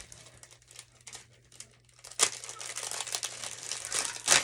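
Plastic crinkling and rustling as it is handled. It is faint for about two seconds, then there is a sharp crackle, steady crinkling, and another sharp crackle near the end.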